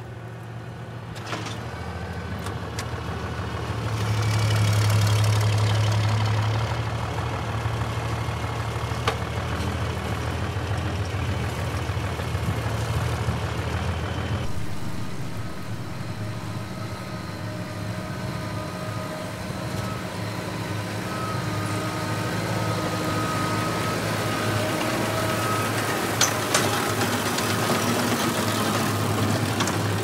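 Farm tractor engines running steadily, with a low hum that swells a few seconds in. About halfway through the sound changes abruptly to a different engine with a faint steady whine over it.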